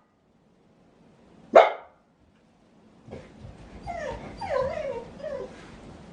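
A dog barks once, sharply, about a second and a half in, then a couple of seconds later gives a wavering, whining vocalisation with rising and falling pitch.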